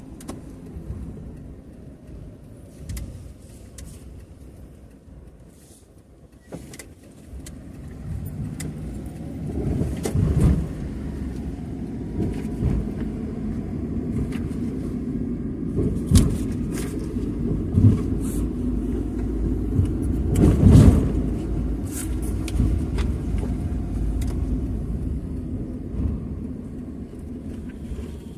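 Motor vehicle rumble that builds from about a quarter of the way in, is loudest about three-quarters through and eases off near the end, with scattered clicks and knocks over it.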